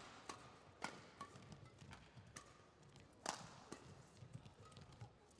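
Badminton rackets striking the shuttlecock during a fast doubles rally: a few sharp, short hits, the loudest about three seconds in, with fainter footfalls on the court in between.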